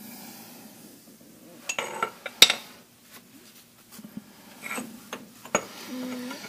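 Steel hand tools and axle parts clinking and clanking as they are picked up and set down, with one sharp metal clank about two and a half seconds in and a brief squeak near the end.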